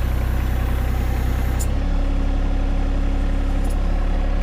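John Deere 1025R compact tractor's three-cylinder diesel engine running steadily while the backhoe is worked; its low drone shifts in note about two seconds in.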